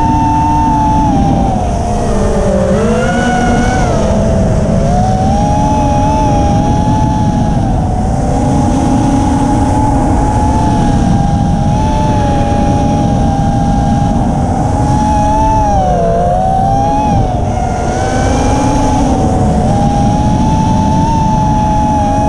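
FPV racing quadcopter's motors whining as heard from its onboard camera, several close pitches running together, dipping briefly as the throttle eases about two to three seconds in and again around sixteen seconds, over a steady rush of wind on the camera's microphone.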